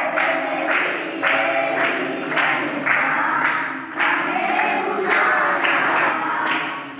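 A crowd of devotees singing a temple aarti together, with a regular beat about twice a second.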